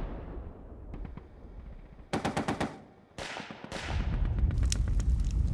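Battle gunfire: a short rapid burst of machine-gun fire about two seconds in, two single shots after it, then a steady low rumble with scattered shots cracking through it. An echoing rumble dies away in the first second.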